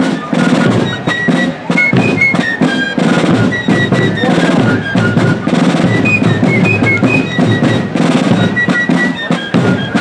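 Fife and drum corps playing a tune: a high fife melody over rapid snare and bass drum beats.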